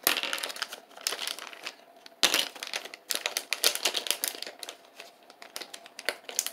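Crinkling foil of a LEGO minifigure blind-bag pack being handled and emptied, with small plastic parts clicking onto a LEGO baseplate. The irregular crackle is loudest about two seconds in and thins out toward the end.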